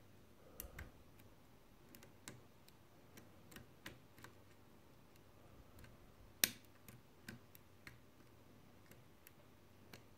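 Faint, irregular clicks and taps of a lock pick and tension wrench working the pin stack of an Abus Titalium TI12 five-pin half cylinder, with one louder click about six and a half seconds in.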